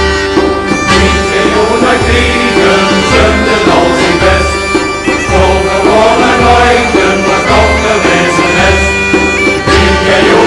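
Background music: held, droning tones over a steady low beat about once a second.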